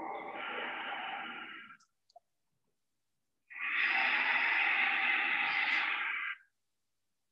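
Two long Ujjayi breaths, drawn slowly through a narrowed throat. The second breath is louder and longer than the first.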